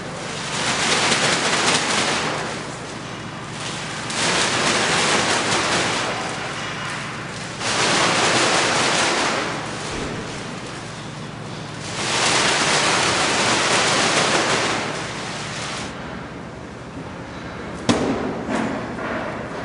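Plastic sack being handled and twisted, its crinkling rustle swelling and fading in four long waves. Near the end, one sharp thump as the powder-filled sack is slapped against the wall.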